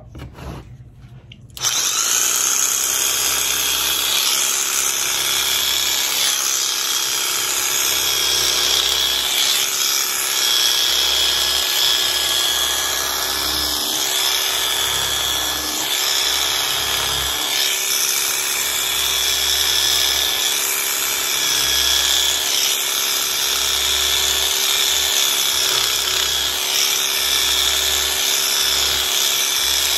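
Electric rug shaver running steadily with a high-pitched whine as it skims across the top of a tufted rug's pile to level it. It starts up about a second and a half in.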